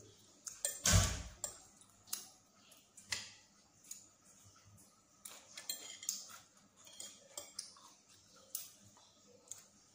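Metal fork and spoon clinking and scraping against a ceramic plate while eating, in scattered short clicks, with a louder thump about a second in.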